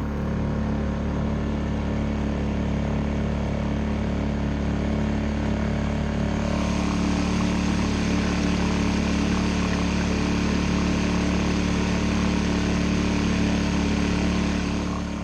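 Small engine running at a steady speed throughout, with no change in revs.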